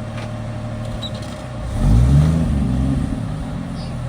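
Off-road vehicle engine running low, then a short rev about two seconds in, with the pitch rising, before settling back to a steady low hum.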